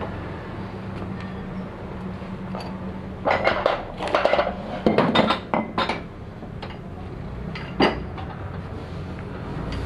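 Metal tools and engine parts clinking and clattering in a quick run of sharp knocks a few seconds in, with one more clink near the end, over a steady low hum.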